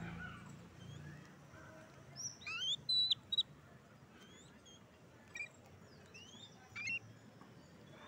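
Babblers calling in short, sharp rising chirps: a quick cluster of the loudest calls about two to three and a half seconds in, then single calls a little after five seconds and again near seven seconds.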